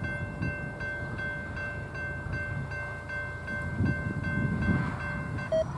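Railroad grade-crossing bell ringing steadily at about two and a half strikes a second, over the low rumble of an approaching freight train's GE diesel locomotives. The bell stops near the end, with a brief tone just as it does.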